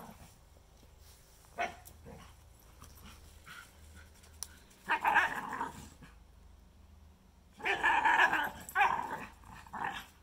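A Shikoku dog's play growls and barks in rough bursts: a short one about a second and a half in, a longer one around five seconds, and a string of them near the end. It is noisy play talk between dogs, not real aggression.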